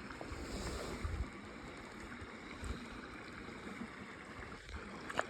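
Small headwater creek running high and muddy after rain and snowmelt: a steady rush of water, with a few short low thumps in it.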